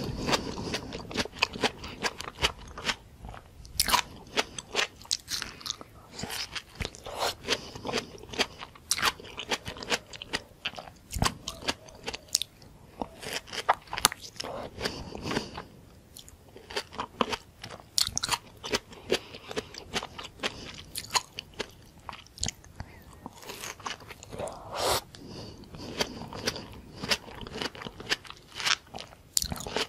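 Close-miked biting and chewing of raw tomato slices topped with whipped cream: a steady, irregular run of crisp, wet crunches and mouth sounds.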